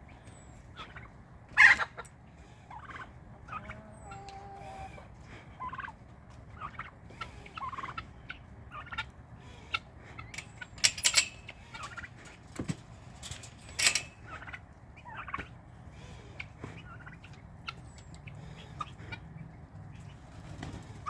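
Domestic farm poultry calling, with turkeys gobbling among many short, irregular calls. A few louder calls stand out about two seconds in and again around eleven and fourteen seconds.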